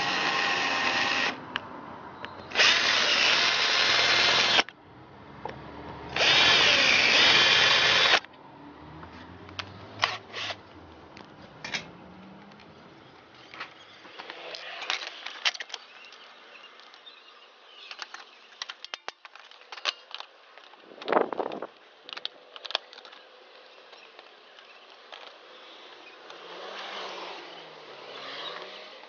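Power drill running in three bursts of one to two seconds each, its whine shifting in pitch, followed by scattered clicks and knocks.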